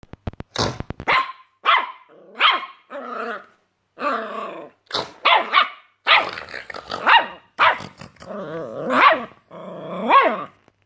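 A puppy barking and growling in a string of short, high yaps, about a dozen of them, some drawn out into lower growling yowls.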